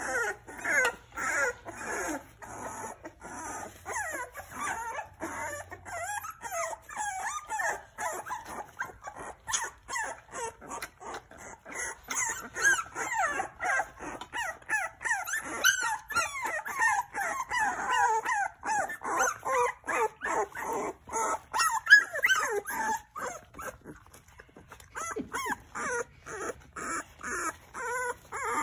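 Young puppies whimpering and crying in a steady stream of short, high, wavering calls, several overlapping at once. The calls thin out and soften for a couple of seconds near the end.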